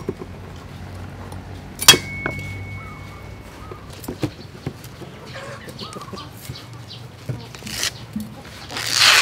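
A few sharp knocks and cuts of a knife on a wooden chopping board, the loudest about two seconds in, with chickens clucking in the background and a rustle near the end.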